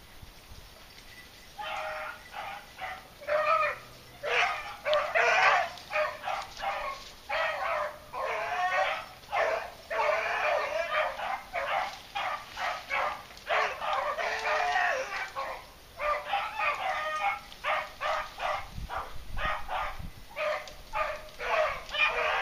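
Beagles baying as they run a rabbit's scent: a near-continuous string of short, high hound calls, starting about a second and a half in.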